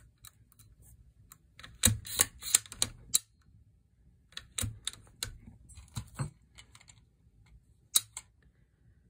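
Scattered metallic clicks and taps from handling the rifle's action and trigger, then one sharp click about eight seconds in as the Timney trigger breaks under a trigger pull gauge, at a pull weight of about 2.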